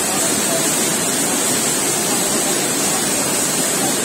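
Shuttle-less projectile weaving loom running at speed, a loud, steady mechanical noise with no breaks.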